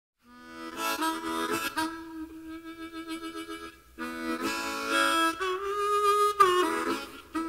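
Harmonica music: chords and bent notes played in a bluesy style, with a wavering passage in the middle and a note bending up near the end.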